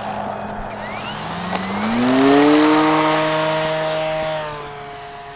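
Electric RC aerobatic plane (E-flite Sukhoi SU-29MM) on its takeoff run. The motor and propeller whine rises steeply in pitch as the throttle comes up about a second in, holds steady and loudest through the climb-out, then fades as the plane flies away near the end.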